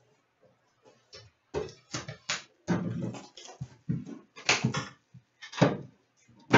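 A box of hockey card packs being handled and opened on a table: an irregular run of short knocks, taps and crinkles of cardboard and pack wrappers.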